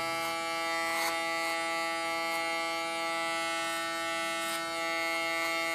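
Electric hair clipper running with a steady, even hum as it trims short hair around the ear.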